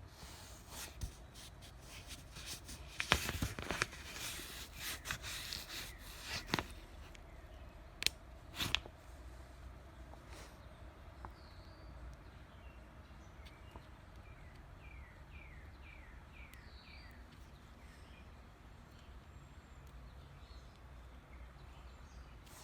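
Clicks and rustling of small objects being handled, with two sharp clicks about eight seconds in. Later a bird calls faintly in the background: a run of quick chirps, each sliding down in pitch.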